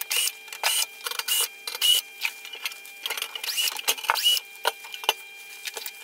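Skil Masters cordless drill-driver backing screws out of a metal light housing: a quick run of short whirring bursts, several rising briefly in pitch as the motor spins up.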